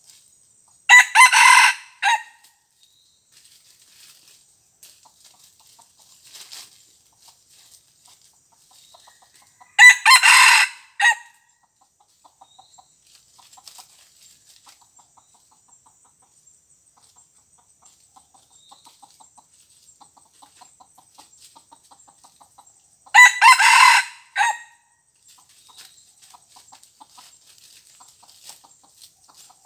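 A rooster crowing three times, each crow about a second long and ending in a short clipped final note: about a second in, about ten seconds in, and about two-thirds of the way through. Faint soft clucking comes between the crows.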